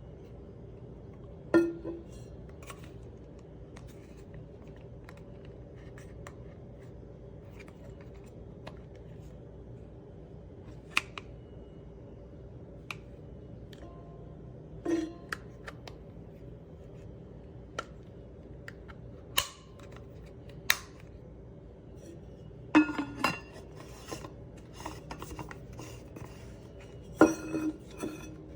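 Scattered sharp clicks and clinks, a few with a brief ring, coming in short quick runs near the end, from a stainless steel insulated water bottle and its push-button lid being handled. A steady low hum sits underneath.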